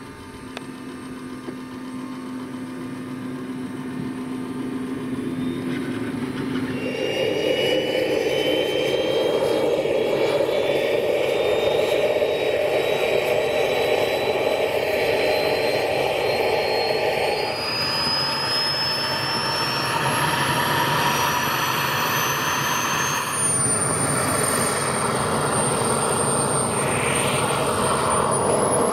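KingTech K-140 model jet turbine spooling up: a high whine that climbs steadily in pitch, getting louder over the first several seconds and then holding steady. The pitch climbs sharply near the end.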